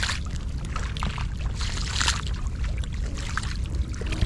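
Shallow water splashing and sloshing in irregular bursts as someone wades through it, over a steady low rumble.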